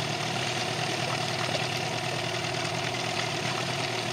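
Outboard motor running at a steady speed as the boat moves through a light chop, with wind and water noise under the motor's even hum.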